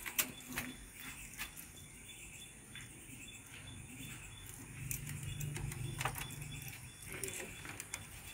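Faint scattered clicks and scrapes of a hand picking at a crack in a concrete wall, a few near the start and one about six seconds in, with a low hum for about two seconds past the middle.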